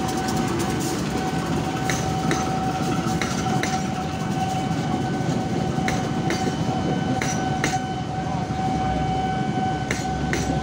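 A train passes close by: the tail of a CC203 diesel locomotive, then a rake of stainless-steel passenger coaches. There is a steady rumble, with wheels clicking sharply over rail joints every second or so. A steady high tone runs under it all.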